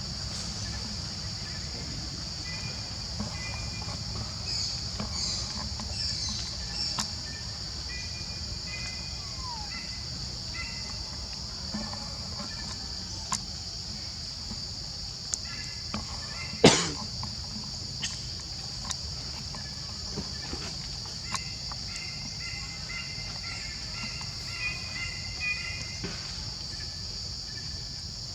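Steady high drone of insects calling, over a low outdoor rumble, with scattered short high chirps and a few sharp clicks; the loudest is a single sharp knock about 17 seconds in.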